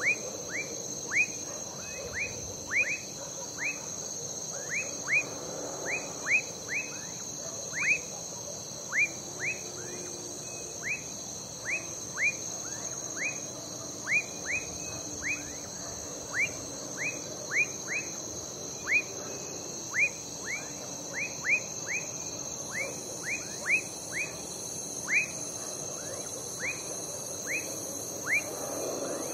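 Night chorus of crickets trilling steadily and high, with frogs giving short whistled notes that fall in pitch, one or two a second.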